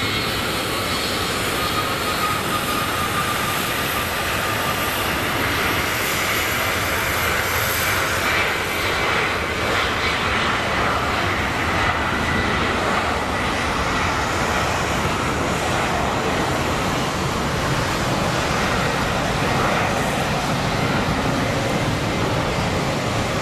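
Embraer 190's twin turbofan engines at takeoff thrust during the takeoff roll: a loud, steady jet engine noise with a faint high whine over it.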